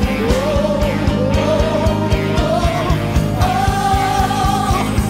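A song playing: a singing voice carries a wavering melody over band accompaniment, with a fast, steady beat in the bass.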